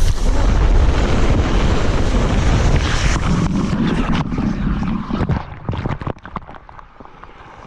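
Wind buffeting the microphone with a loud, steady rushing noise that drops away after about five seconds into scattered knocks.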